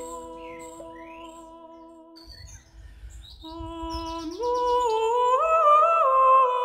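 Background music of soft held notes, with short bird chirps over it in the first half. About four seconds in, a slow melody comes in louder and steps up and down in pitch.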